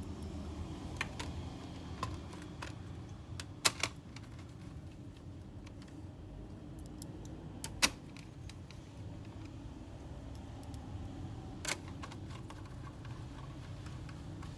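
Scattered light clicks and taps, with a few sharp, louder clicks about 4, 8 and 12 seconds in, over a low steady hum.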